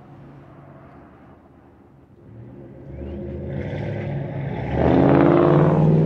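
Mercury Grand Marquis 4.6-litre V8, running on newly fitted replacement ignition coils, pulling away under hard acceleration. After a faint low rumble, the engine note rises in pitch and grows louder from about two seconds in, and is loudest near the end.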